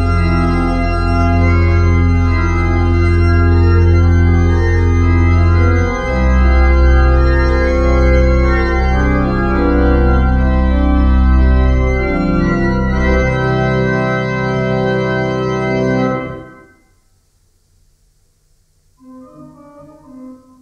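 Church organ playing sustained chords over deep bass notes. A final chord is released about 16 seconds in and dies away, and after a short pause softer organ playing begins near the end.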